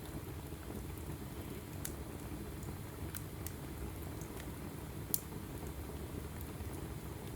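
Wood fire burning in a fireplace: a steady low rumble under scattered sharp crackles from the burning logs, with one louder pop about five seconds in.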